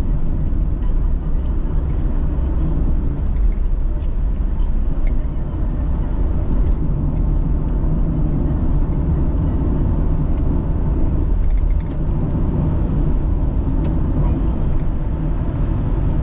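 Steady road noise of a moving car heard from inside the cabin: tyre and engine rumble, loud and even.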